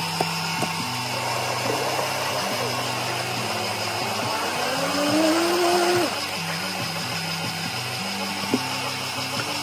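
Steady whirring hum of café drink-making equipment under soft background music. About five seconds in a brief rising whine swells and stops abruptly, and a few light clicks of containers on the counter come near the start and the end.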